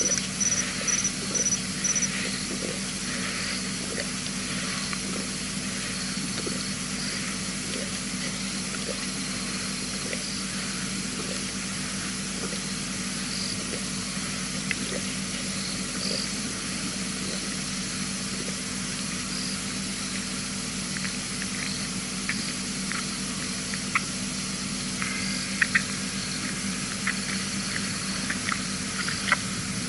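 Lioness licking her fur, faint soft wet licks scattered over a steady background hiss and hum. A high chirp repeated about three times a second stops about two seconds in.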